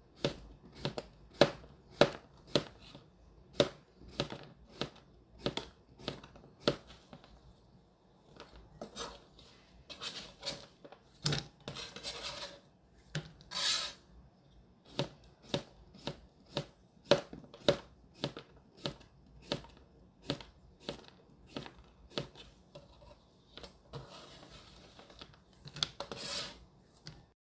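Kitchen knife slicing cucumbers into thin rounds on a plastic cutting board, a steady cut about twice a second, with a few longer scraping stretches in between.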